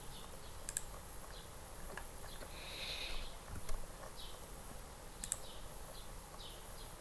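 Quiet background hiss with scattered faint, short high chirps, a brief louder chirping patch about three seconds in, and two sharp clicks, one just under a second in and one about five seconds in.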